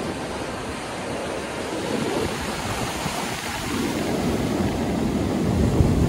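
Atlantic surf breaking on the beach: a steady wash of waves that grows louder in the second half, with a low rumble near the end.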